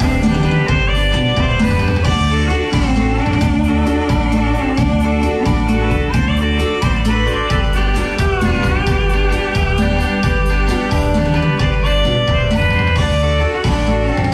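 Live music from a keyboard band: an electronic keyboard melody over a heavy, pulsing bass line and a steady percussion beat.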